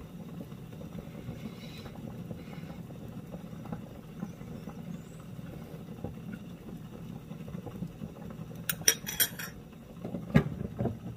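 A metal spoon and a vented stainless-steel pot lid being handled: a quick run of metallic clinks, then the lid set back down on the cooking pot with a couple of clanks, over a steady low hum.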